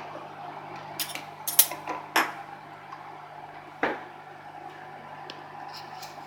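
Microwave oven running with a steady hum, while dishes clink and knock: a quick cluster of sharp clinks between about one and two seconds in, and one more knock near four seconds.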